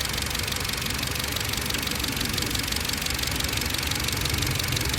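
Skoda Octavia A7's 1.8 TSI petrol engine idling steadily after a cold start, with an even high-pitched whistling noise over the engine. This is the cold-start whistle with grinding that the owner cannot explain.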